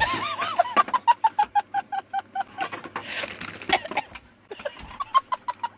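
Chicken-like clucking: a few swooping notes, then rapid runs of short, even clucks, about six a second, twice.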